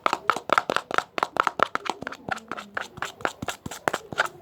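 Foamy clear-glue and dish-detergent slime mixture, not yet activated, being stirred fast in a container: a steady run of quick, sticky clicks, about five or six a second.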